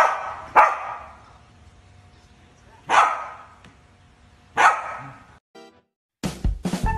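Corgi barking four times: two quick barks, then two more spaced a second or two apart. Music comes in near the end.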